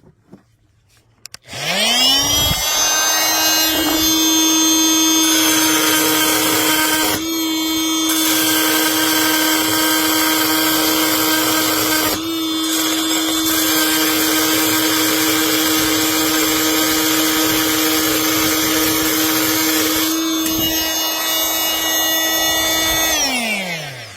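Oscillating multi-tool starting up with a rising whine, then running with a steady buzz while a gold bi-metal blade cuts into steel, with a couple of brief dips in level where the cut changes. It winds down with a falling pitch near the end.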